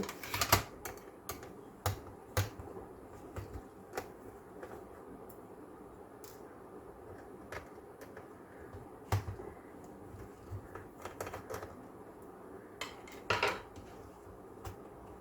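Small Phillips screwdriver taking screws out of a laptop's plastic base: scattered light clicks and taps of the bit, the screws and the tool on the case, with a brief clatter near the end.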